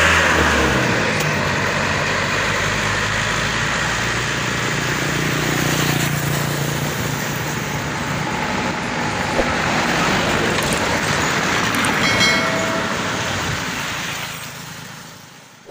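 Road traffic: a Mitsubishi truck carrying a combine harvester driving away, with a motorcycle and a pickup passing close by. The sound fades out near the end.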